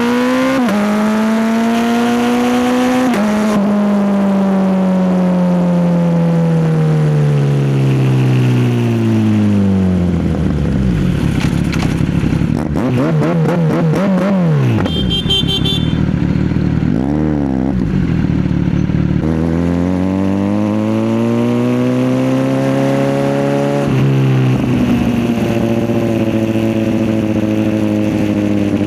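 Kawasaki Z900 inline-four engine on the move: it revs up through a gear change, then winds down in a long deceleration. The middle is a slow low-rev stretch with a few short throttle blips, after which it pulls away again, shifting up about five seconds before the end.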